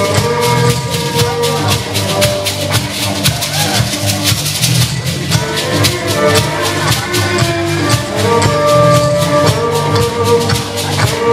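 Music with busy, steady percussion over held melody notes and a pulsing bass line.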